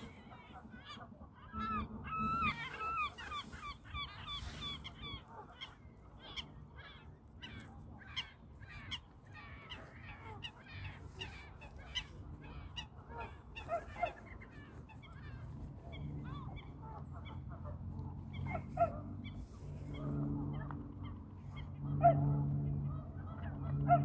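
Waterfowl calling: a fast run of short repeated calls, with lower, louder calls building in the second half.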